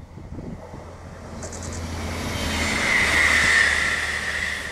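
ÖBB class 5047 diesel railcar passing by: its engine hum and wheel-on-rail noise grow louder to a peak about three and a half seconds in, then begin to fade.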